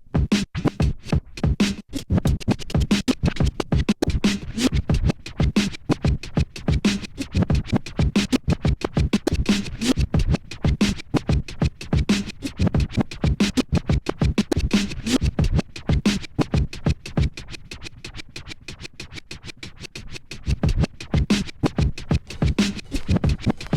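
Turntable record scratching over an electronic beat, in quick rhythmic strokes. It drops quieter for about three seconds past the middle, then comes back at full level.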